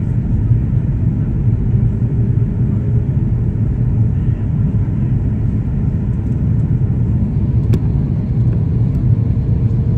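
Airliner cabin noise during the descent to landing: a steady low rumble of jet engines and airflow heard from a window seat, with a single faint click about three-quarters of the way through.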